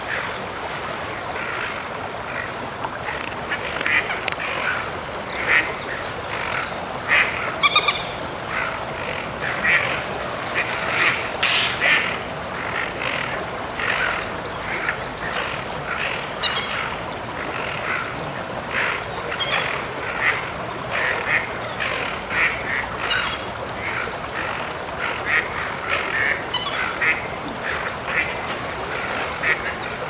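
Ducks quacking over and over, short calls coming a few times a second with no break.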